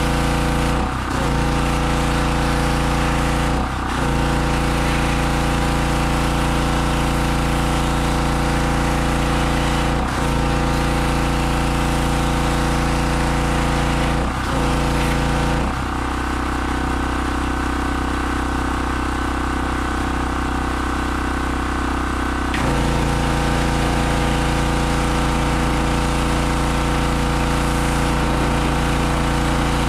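Harbor Freight 2500 PSI pressure washer's 160cc gasoline engine running steadily under the spray, with brief dips about 1, 4, 10 and 14 seconds in. Its note changes and drops slightly for several seconds from about 16 seconds in, then returns.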